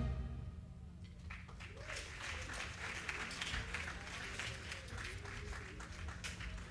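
The band's final brass chord dies away in the hall's reverberation, then faint audience applause with scattered voices follows over a steady low hum.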